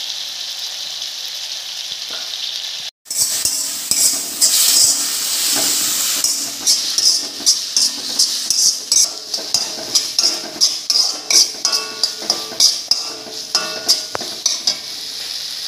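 Spiced prawn-and-masala mixture, with soy, tomato and chilli sauces just added, sizzling in a hot pan. After a brief break about three seconds in, the sizzling grows busier and a utensil scrapes and stirs the pan about twice a second.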